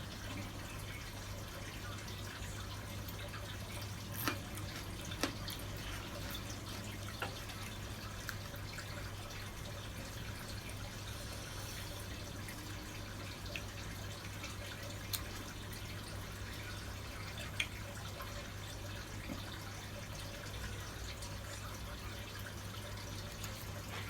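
Steady hiss with a constant low hum, broken by a few faint clicks or taps.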